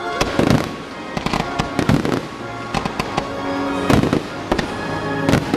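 Fireworks display: aerial shells going off in a string of loud bangs and crackles, the biggest about half a second, two, four and five seconds in, with music playing under them.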